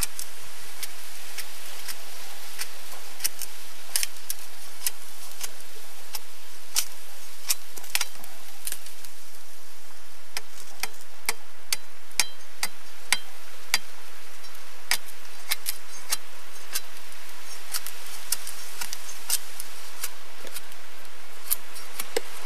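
A cutlass blade shaving the rind off a stalk of sugarcane: crisp, irregular cutting strokes, about one or two a second, over a steady background hiss.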